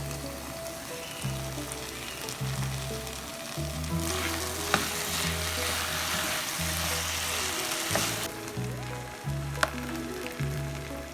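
Food sizzling as it fries in a pan, growing louder for a few seconds in the middle, with a couple of sharp knocks. Background music plays underneath.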